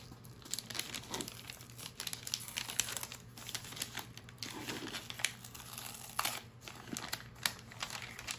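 Brown kraft-paper wrapping crinkling and rustling as it is unfolded by hand, in a string of irregular crackles.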